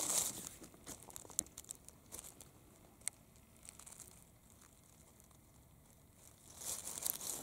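Dry fallen oak leaves and litter rustling and crackling under a hand as a mushroom is picked up from the forest floor. There are a few scattered crackles in the quieter middle and a louder rustle near the end.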